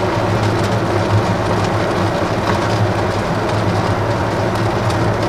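A pempek fish cake frying in hot oil in a wok: steady sizzling with scattered crackles and pops, over a steady low hum.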